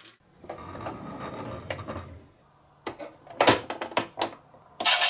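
A low rolling rumble with light clicks, as of a marble running along a wooden track, for about the first two seconds. Then several sharp plastic clicks and clacks as the door of a plastic toy pickup truck is worked by hand, and a loud steady sound starts near the end.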